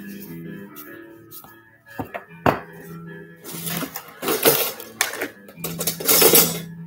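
Soft background music with held low notes, with a couple of sharp knocks of utensils on the work surface and louder rustling handling noises about four seconds in and again near the end.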